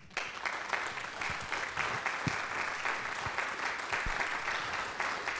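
Audience applauding, breaking out at once and carrying on steadily.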